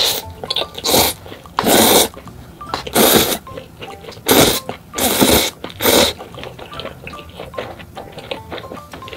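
Instant ramen noodles being slurped loudly from a fork, about seven short slurps in the first six seconds, then quieter chewing.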